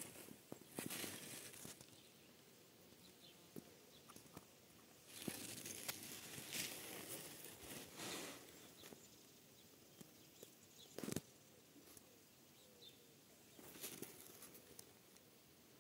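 Near silence broken by a few faint rustles of leaves and plant stems. The sharpest rustle is a short one about eleven seconds in.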